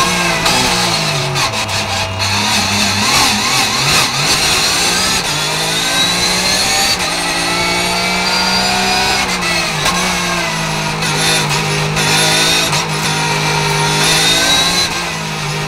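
Porsche 991 GT3 Cup Gen. II's flat-six racing engine heard from inside the cockpit under hard driving. Its pitch climbs under throttle, then drops several times as the car shifts gears and slows for corners.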